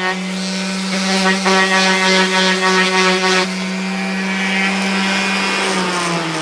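Small power tool spinning a buffing wheel at steady speed, with a rough rubbing sound as the wheel works compound over a camera lens for the first few seconds. It is then switched off, and its whine falls in pitch as it spins down near the end.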